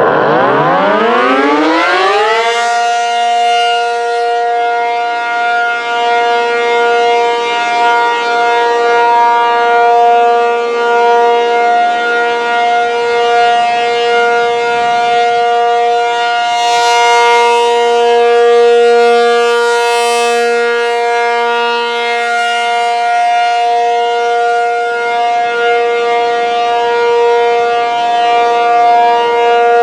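ACA P-50 outdoor warning siren with a 480-volt motor, sounding the Alert signal. It winds up from a low growl to its full pitch over the first two or so seconds, then holds one loud, steady tone.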